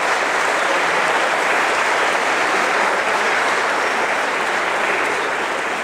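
Audience applauding, a steady crowd clapping that begins to die away near the end.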